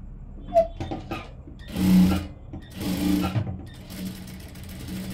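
JACK industrial sewing machine stitching a tuck through cotton fabric in two short runs, with a few sharp clicks before the first run and a steadier, quieter running after the second.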